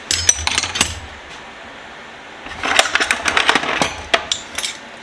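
Metal hand tools such as wrenches and sockets clinking and clattering against each other as they are handled and set down. There is a short burst at the start and a longer run of clinks from about halfway through.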